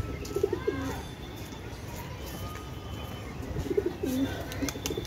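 Domestic pigeons cooing: low coos about half a second in and again near the end, with faint higher chirps between.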